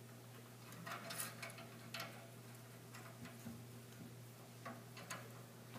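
Faint, irregular light clicks and taps of a brass TXV fitting and copper capillary tubing being handled and hand-tightened, over a low steady hum.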